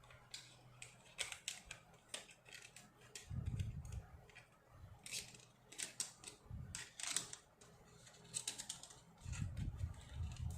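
Irregular sharp clicks and taps of hard plastic being handled, with a few short low thumps, as the laptop and the new RAM module and its packaging are handled.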